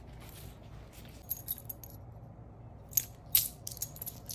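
A ring of metal keys with a metal tag jangling as it is shaken by hand. A few light jingles come about a second in, then a louder run of jangles in the second half.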